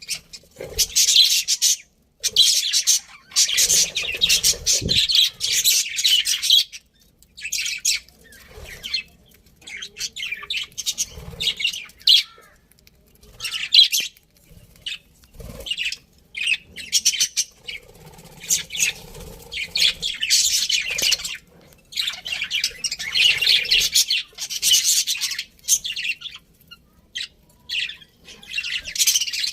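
Several budgerigars chirping and chattering in bursts of a few seconds, with short quieter pauses between.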